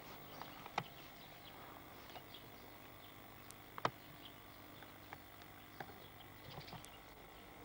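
Faint room tone with a steady hum and scattered small clicks and taps, the sharpest about four seconds in.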